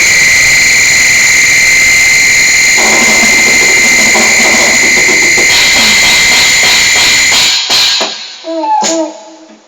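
Electronic keyboard holding one loud, high-pitched note for about seven seconds, then cutting off, followed by a few short lower notes near the end.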